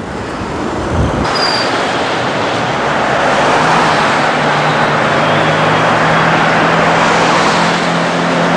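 Wind rumbling on the microphone, then an abrupt change about a second in to steady road traffic noise from passing cars. A low steady hum joins a few seconds in.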